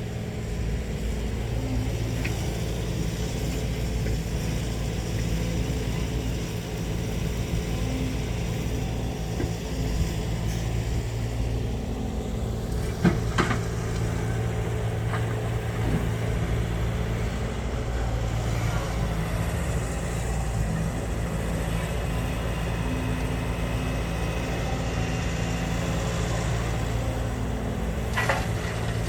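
Heavy diesel engine running steadily at a low, even pitch, with a couple of short knocks about halfway through and a lighter one near the end.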